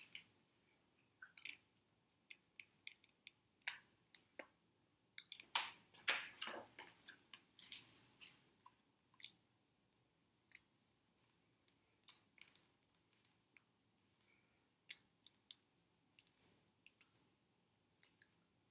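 Faint, scattered clicks and soft taps of a signer's hands, with a longer paper rustle about five to seven seconds in as a picture-book page is turned.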